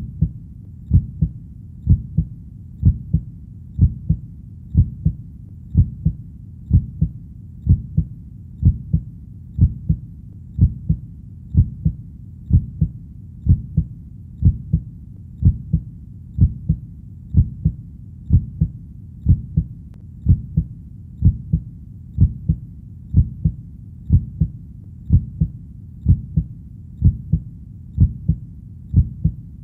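Human heartbeat: a steady lub-dub, two low beats close together, repeating about once a second over a low steady rumble.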